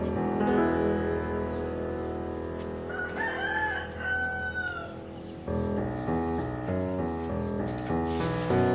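A rooster crows once, about three seconds in, a drawn-out call that rises and then falls, over piano background music.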